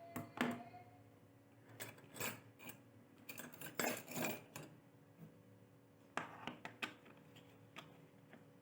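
Irregular light metallic clicks and clinks of small metal tools or parts being handled, coming in clusters with short pauses between them.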